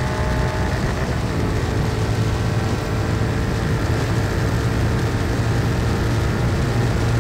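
Royal Enfield Continental GT 650's 648 cc parallel-twin engine running steadily at high revs, held open on a top-speed run at about 170 km/h, with wind rushing past.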